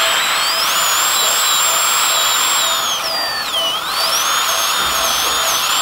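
High-speed dental handpiece whining at a high pitch as it cuts a primary tooth. The pitch sags for about a second, around three seconds in, as the bur is loaded against the tooth, then climbs back. A steady suction hiss runs underneath.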